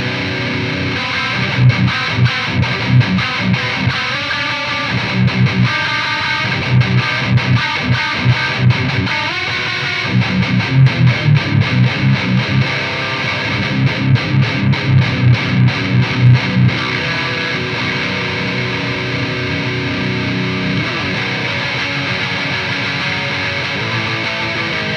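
Distorted electric guitar played through an EVH 5150III 15-watt LBX head at quarter power into a Mesa Boogie 1x12 Mini Rectifier cabinet with a Celestion Vintage 30 speaker, miked with a Shure SM58. Fast runs of short, chugging low notes for most of the first two-thirds, then steadier held notes ringing on near the end.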